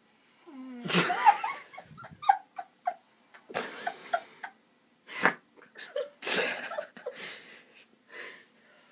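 A man snoring heavily in his sleep: irregular loud, breathy snorts and wheezing gasps about a second apart, with short squeaky notes between them.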